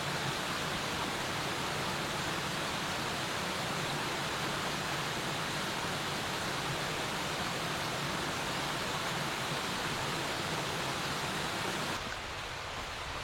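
A steady, even rushing noise with no rhythm or pitch, which cuts off abruptly near the end to a quieter ambience.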